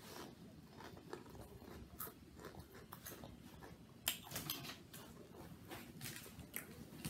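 Quiet crunching and chewing of snack chips, with scattered small crackles and clicks and a sharper crack about four seconds in.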